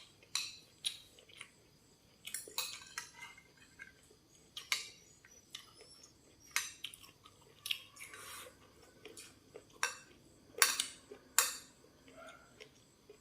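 Eating utensils clinking against dishes in irregular, sharp clicks, the two loudest a little after ten and eleven seconds in.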